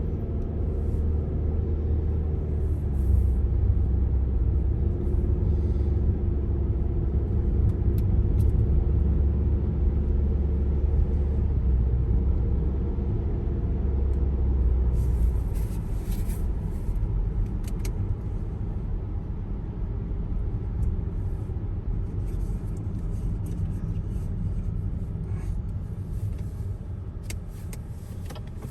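Car driving on a road, a steady low rumble of tyres and engine, with short hissing crackles coming and going from about halfway through.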